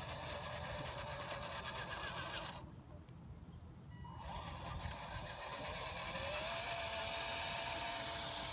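Small electric motor of a remote-control 4x4 model whining as it drives, in two spells. It cuts out for a second or so about 2.5 s in, then starts again and grows louder, its pitch rising and then holding steady.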